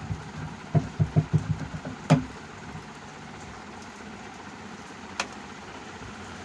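Handling noise through a small transistor amplifier with a microphone connected: a quick run of low thumps, a sharp click about two seconds in and a fainter click near five seconds, over the amplifier's steady hiss.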